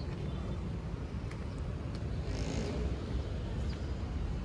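Steady low rumble of street traffic, with a short hiss about two and a half seconds in.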